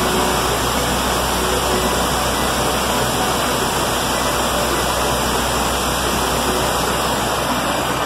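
Waterfall pouring over rock into a pool: a steady, loud rush of falling water.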